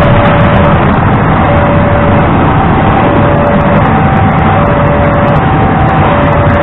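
A passenger train's coaches rumble past at a level crossing, with steady loud wheel-on-rail noise. Over it the crossing's electronic warning alarm sounds two alternating tones, high then low, each lasting about three-quarters of a second.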